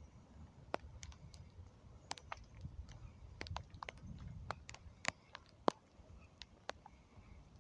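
Wind buffeting the phone's microphone as a low, fluctuating rumble, with irregular sharp ticks and taps scattered through it.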